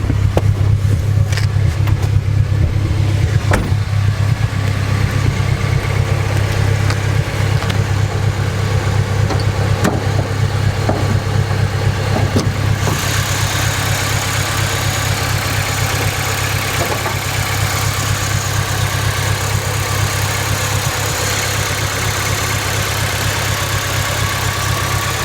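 Honda Civic Si engine idling steadily after a drive, with a few sharp clicks in the first ten seconds. About halfway through, a brighter hiss and whir joins in.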